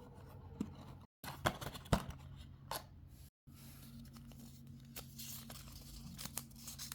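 Paper and cardboard packaging being handled: scattered soft rustles and light taps over a faint steady hum, with the sound dropping out completely twice.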